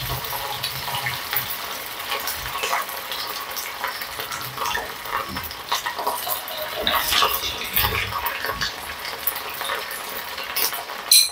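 Oil sizzling and crackling in a small saucepan as spoonfuls of minced meat mixture are dropped in to deep-fry, with a metal spoon clinking against the bowl and pan. A sharp clink comes near the end.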